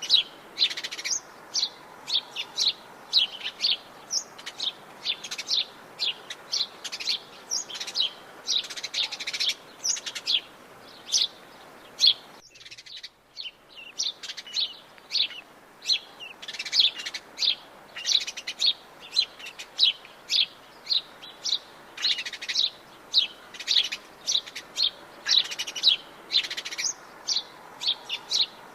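Birds chirping: a dense, continuous run of short, high calls, about two a second. About twelve seconds in, everything, the faint background hiss included, cuts out for about a second and a half before the chirping resumes.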